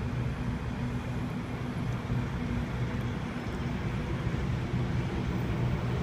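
Steady low hum of approaching diesel-electric locomotives (a 44 class and a 45 class) not yet in sight, heard as an even engine drone with no clear rise or fall.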